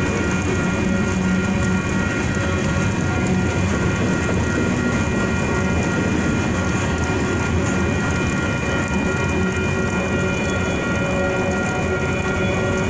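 Freight train cars rolling past, covered hoppers and then an autorack, their wheels clattering over the rails in a steady rumble. Several steady high-pitched tones sit above the rumble.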